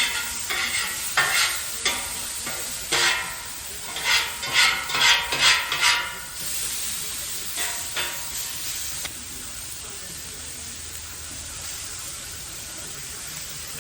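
Food sizzling in a frying pan, stirred and scraped with a utensil: a quick run of strokes over the first six seconds and two more near eight seconds, then the steady sizzle alone.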